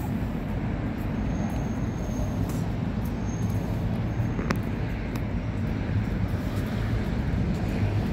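Steady low rumble of city street traffic, with a single sharp click about four and a half seconds in.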